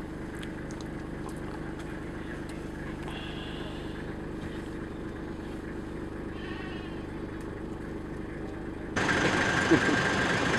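Steady low drone of a moving vehicle heard from inside the cabin, with a few faint high chirps over it. About nine seconds in it cuts abruptly to louder, rougher outdoor noise beside a vehicle.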